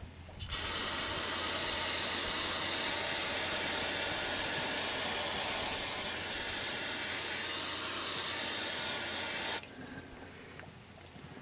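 Aerosol spray can with a straw nozzle giving one long steady hiss of about nine seconds, starting about half a second in and cutting off abruptly, as it washes spilled gear oil off the rear differential housing.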